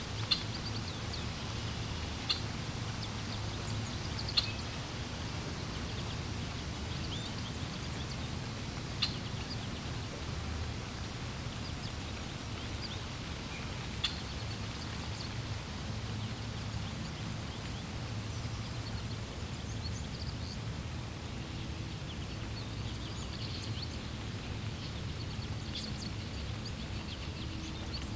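Wild birds chirping in short, sharp calls every few seconds over a steady low rush of flowing water.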